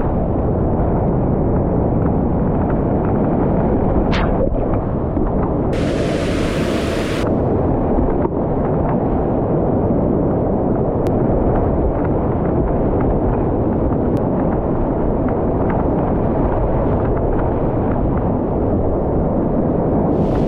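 Loud, steady rush of whitewater rapids, with a brief brighter hiss about six seconds in.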